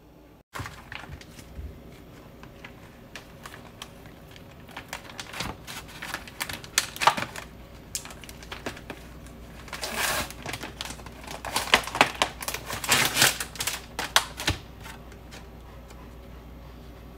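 Crinkly plastic packaging of sliced meat being handled, giving irregular crackling and sharp clicks that come in dense clusters, busiest in the second half.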